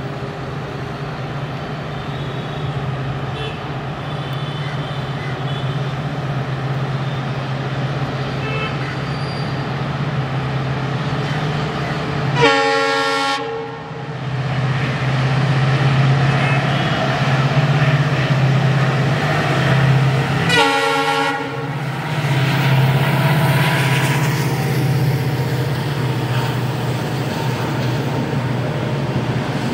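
WDG-4D diesel-electric locomotive (EMD 710 two-stroke engine) running as it draws near, a steady low hum that slowly grows louder. Its horn sounds twice, about a second each, roughly 12 s and 21 s in. The passenger coaches then roll past, louder.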